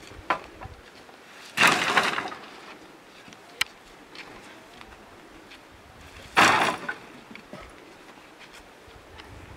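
Firewood sticks crashing down onto a woodpile as loads are tipped out of woven carrying baskets: two loud clattering crashes, about one and a half seconds in and again about six and a half seconds in, with a few single knocks of wood between.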